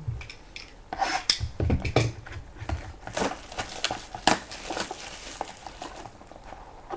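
Hands handling trading-card boxes close to the microphone: rustling and scraping of cardboard and wrapping, with a few sharp knocks as boxes are moved and set down, the loudest about 1, 2, 3 and 4 seconds in.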